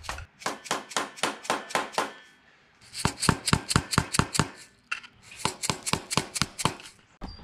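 Rapid hammer taps on the end of a through-shank screwdriver, about five a second, in three runs with short pauses. They are bending back the locking tabs on a Land Cruiser FJ45's front wheel-bearing lock nut.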